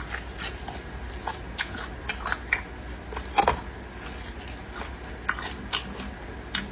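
A person eating beef bone marrow close to the microphone: scattered short wet clicks and smacks, with a louder one about halfway through.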